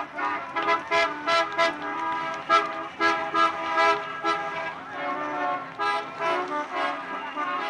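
Busy street traffic with many car horns honking over one another, short toots and longer blasts at different pitches, mixed with sharp clicks and knocks.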